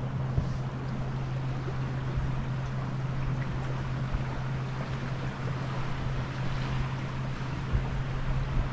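Wind buffeting the microphone and water washing past the hull of a small sailboat under sail, over a steady low hum.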